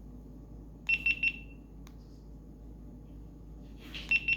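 GoPro Hero7 Black camera beeping: three short high beeps about a second in, then a quick run of about seven beeps near the end, as the camera is powered on and off.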